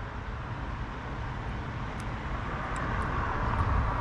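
Steady background rumble and hiss that swells a little near the end, with a few faint ticks.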